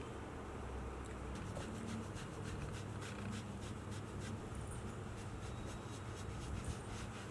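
Soft rubbing and scratching, like hands working over clothing and skin, in many faint short strokes that are thickest in the first half, over a low steady hum.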